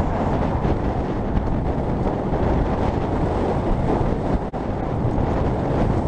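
Strong wind buffeting the microphone, a steady low rumbling noise, with a momentary break about four and a half seconds in.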